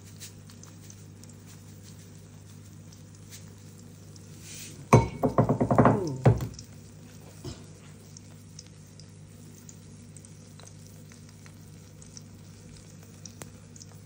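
Omelette of beaten egg with onion and tomato cooking on slow heat in a frying pan, a faint crackling sizzle over a steady low hum. About five seconds in, a loud pitched burst of a sound with falling tones lasts about a second and a half.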